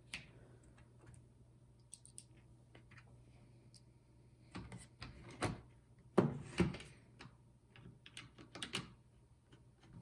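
Scattered light clicks and taps as a bit is taken from a precision screwdriver kit and small Torx screws are driven into the plastic housing of a Ford EATC climate-control module, with the plastic module knocked and handled on the table; the loudest taps come about six seconds in.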